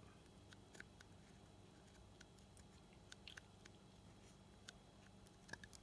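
Near silence: faint room hum with a few faint, short clicks scattered through it, small handling noises.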